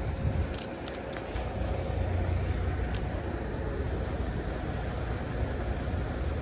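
Urban road traffic on a wet street: a steady low rumble of vehicles, with a few light clicks.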